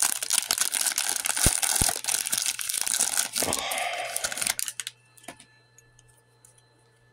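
Foil wrapper of a Donruss Optic football card pack crinkling and tearing as it is ripped open by hand, stopping about four and a half seconds in.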